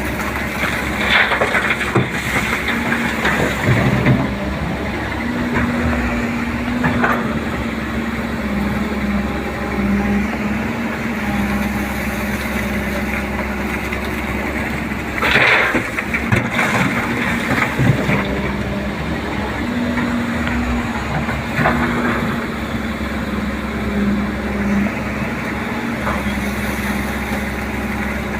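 JCB 205 tracked excavator's diesel engine running under hydraulic load, its pitch stepping up and down as the machine works. A few short, loud noisy bursts stand out, about a second and a half in and around fifteen seconds in.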